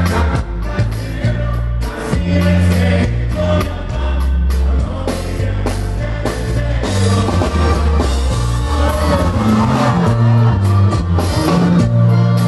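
Live norteño band music with a stepping bass line, drums and singing.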